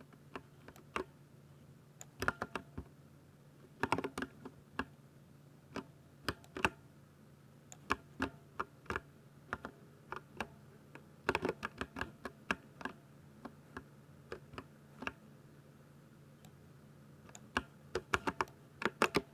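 Typing on a Ducky 60% mechanical keyboard with linear silver switches: irregular runs of quick keystroke clacks in bursts, with brief pauses between them.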